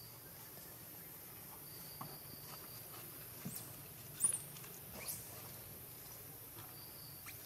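Baby macaque giving a few short, high-pitched squeaks, the loudest about four seconds in, as it struggles in its mother's hold.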